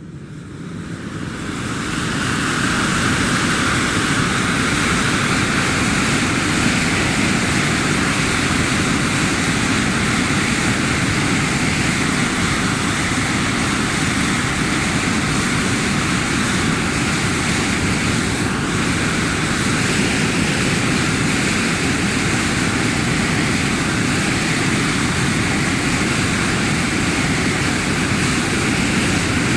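Jet engine spooling up, growing louder over the first two seconds, then running steadily at high power: a steady whine over a deep rush of exhaust noise.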